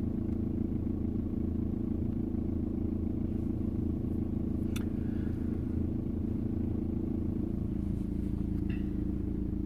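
VW Passat B5 1.9 TDI Pumpe-Düse diesel engine idling steadily at about 900 rpm with a rattle from the front of the engine bay, a plastic or rubber kind of noise. The rattle comes and goes at idle and vanishes above about 1,000 rpm; the owner doubts it is the dual-mass flywheel.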